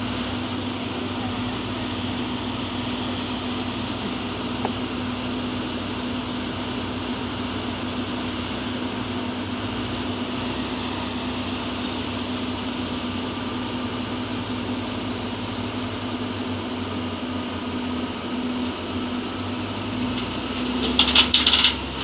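Caterpillar hydraulic excavator's diesel engine running steadily with a constant hum. Near the end come a few loud, sharp clattering knocks.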